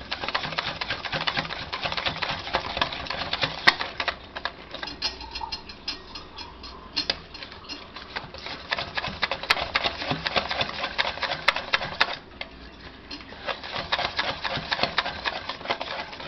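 Hand whisk beating thin cake batter in a stainless steel bowl, its wires clicking rapidly against the metal, with a short pause about twelve seconds in. The batter is being beaten smooth to work out the lumps.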